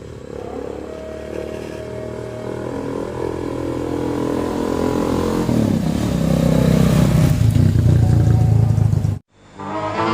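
Motorcycle engine of a home-built mini jeep running, its pitch shifting and growing louder over several seconds. It cuts off suddenly near the end, and music takes over.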